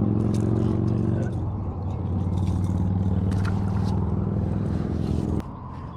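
A motor runs with a steady hum, its pitch shifting slightly just over a second in, with scattered light clicks and scrapes over it; the hum cuts off suddenly near the end.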